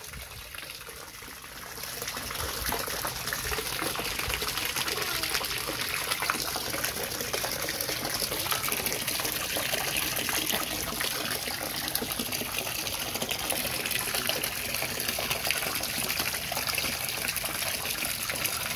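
Water gushing and splashing in a metal basin crowded with live tilapia, a steady rush that grows louder about two seconds in.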